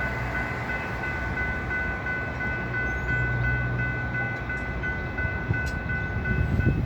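Metra EMD F40PH diesel locomotive and its train running, with a low rumble under a steady, high ringing tone that pulses briefly every fraction of a second.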